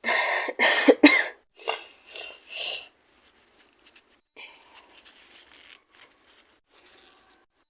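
A woman coughing in two short fits, about six coughs in the first three seconds, followed by faint breathing. She says she is sick with a fever.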